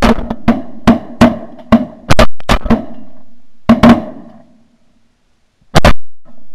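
A volley of shotgun shots at close range, about a dozen fired in quick, uneven succession over the first four seconds, several in pairs, each with a short ringing tail. After a short lull, two more shots close together near the end.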